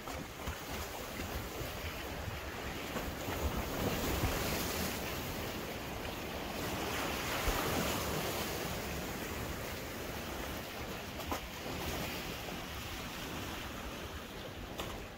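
Small lake waves splashing and washing against the shore, swelling about four seconds in and again halfway through, with wind rumbling on the microphone.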